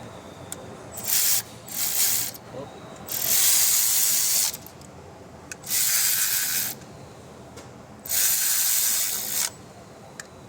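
Hand socket ratchet being worked in five bursts of rapid clicking, each about half a second to a second and a half long, as the coil pack bolts are tightened down.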